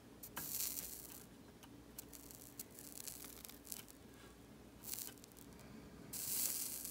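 Solder flux sizzling faintly as a soldering iron melts solder wire onto the pins of a 24-pin DIP socket, in three short hissing spells: just after the start, briefly about five seconds in, and again near the end.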